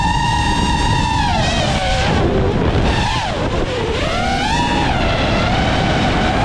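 An iFlight Nazgul 5-inch 6S FPV quadcopter's motors whining as the throttle changes. The pitch holds high for over a second, drops, swoops down and back up in the middle, then climbs high again, over a steady low rushing noise.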